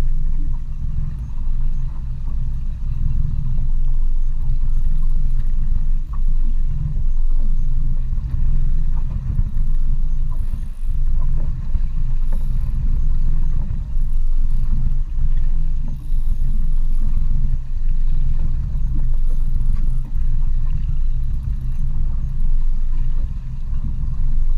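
A boat's outboard motor idling, a steady low rumble.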